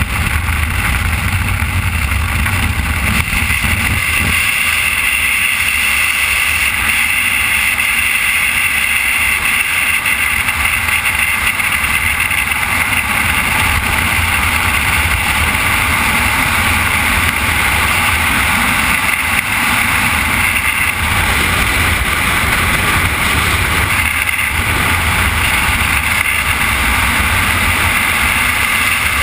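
Loud, steady wind buffeting a helmet-mounted camera's microphone during a skydiving freefall, at first the slipstream and aircraft noise at the open door, then the rush of air in freefall.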